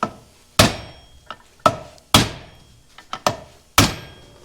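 A hammer strikes metal about five times at an uneven pace, with a few lighter taps between, each blow ringing briefly. It is driving a bearing out of the Oliver 77 tractor's PTO housing.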